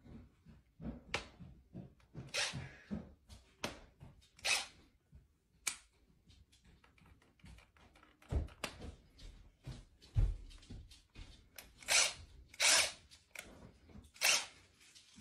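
Cordless drill run in short whirring bursts at irregular intervals. There are a couple of dull low thumps about halfway through.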